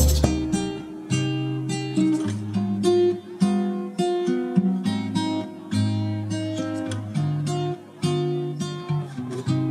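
Background music: an acoustic guitar plays a picked melody of short plucked notes over held bass notes.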